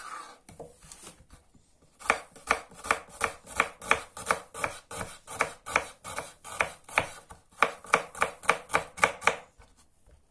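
Kitchen knife slicing an onion into half-rings on a wooden cutting board: a steady run of chops, about three a second, that starts about two seconds in and stops shortly before the end.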